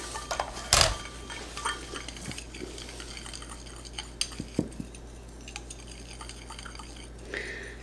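A utensil stirring oil in a container, mixing fragrance oil into a body oil blend. Light clinks and taps sound against the container, with one sharper clink about a second in.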